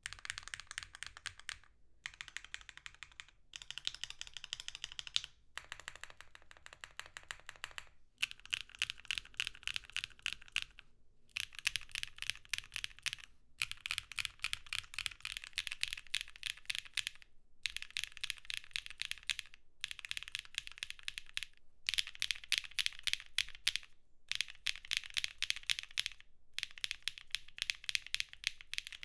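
Fast typing on a Neo65 mechanical keyboard with Keygeek Keylin linear switches (nylon housings, UPE stems), a rapid stream of light, fairly high clacks in runs of a few seconds broken by brief pauses.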